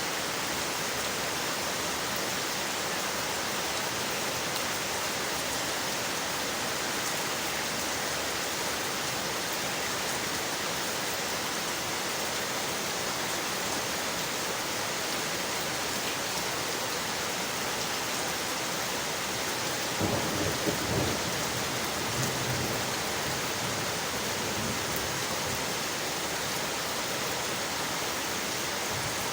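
Steady rain on windowpanes, with a low rumble of thunder about two-thirds of the way through that swells in a few pulses and lasts a few seconds.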